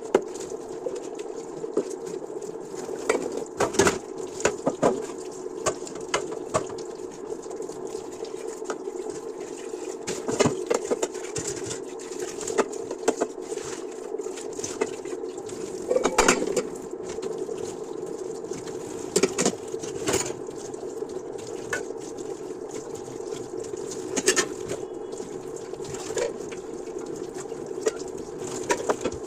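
Dishes being washed by hand: scattered clinks and knocks of dishes and utensils over a steady running sound.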